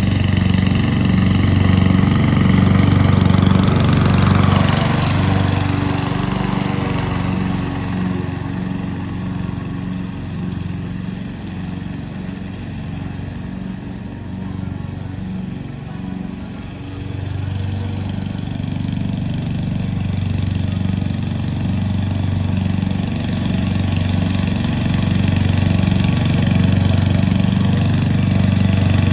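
Petrol lawn mower engine running steadily while mowing. It gets quieter for several seconds in the middle, then comes back louder.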